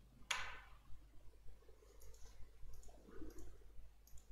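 Faint clicking of a computer mouse: one sharper click about a third of a second in, then a few softer clicks later.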